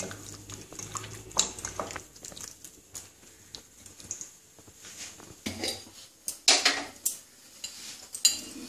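Hands mixing salt and lemon juice into raw chicken pieces in a bowl, with scattered knocks and clinks of the dishes.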